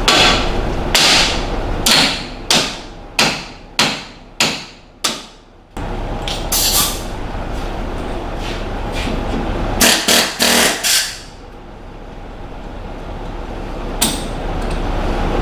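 Hammer blows on steel: a run of about eight sharp strikes in the first six seconds, each ringing briefly, then a few scattered strikes later. A steady low hum runs underneath.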